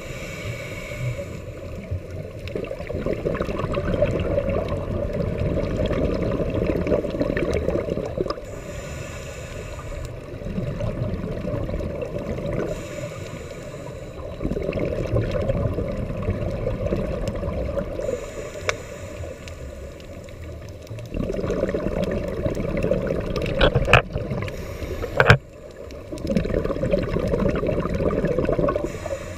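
Underwater breathing through a scuba regulator. Long gurgling rumbles of exhaled bubbles alternate with quieter stretches of faint inhalation hiss, about every several seconds. Two sharp knocks come close together a little over three-quarters of the way through.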